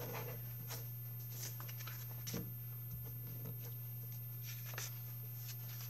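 Faint rustling and light taps of paper being handled and moved over a cutting mat, over a steady low hum.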